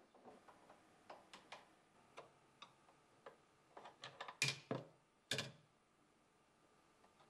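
Metal clicks from a Blum AVENTOS HS lift mechanism and its lever arm being worked by hand: a string of light ticks, then two louder clacks a little over four seconds in and about a second later as the arm is moved.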